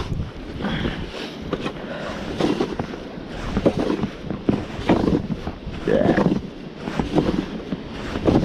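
Snow shovel scraping and crunching through snow in repeated uneven strokes while a path is cleared.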